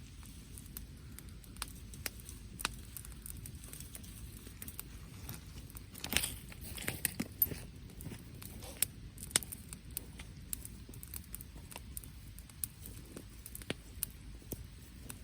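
Wood fire crackling with scattered sharp pops, over a low steady rumble. A quick run of louder crackles comes about halfway through.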